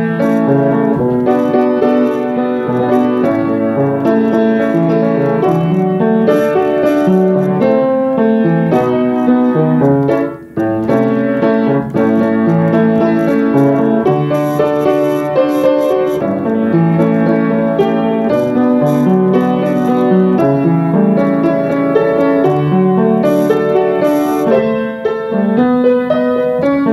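Piano-toned keyboard playing the instrumental break of a pop song, a run of sustained chords with a melody over them, briefly dropping out about ten seconds in.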